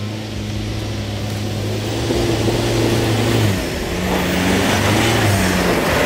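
Mitsubishi Triton 4WD ute's engine pulling up a sandy track and driving close past. The engine note drops about three and a half seconds in, then rises again as it climbs.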